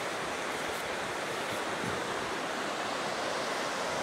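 Steady rush of whitewater from the creek and waterfall in the rock gorge below the trestle, an even wash of water noise.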